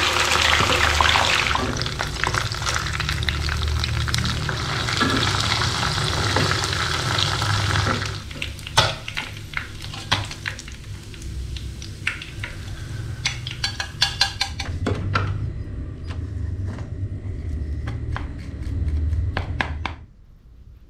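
Fish frying in hot oil in a pan: a loud, steady sizzle for about the first eight seconds, then quieter frying with sharp clicks and scrapes of a metal spatula and a mesh splatter screen against the pan. The sound stops abruptly near the end.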